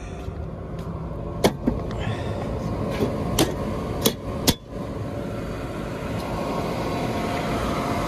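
1994 Fraser-Johnston gas rooftop unit running steadily in heating mode, with about six sharp knocks in quick pairs in the first half from the unit's sheet-metal panels being handled.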